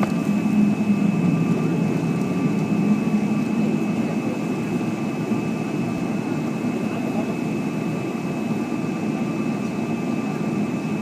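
Boeing 777-300ER's GE90 jet engines running steadily: an even hum with two faint, steady high whine tones over it, not rising.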